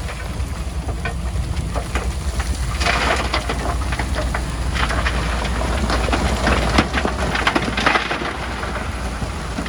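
Heavy earthmoving machinery at work: a diesel engine's steady low rumble under a dense crackling and crunching of soil and stones being pushed.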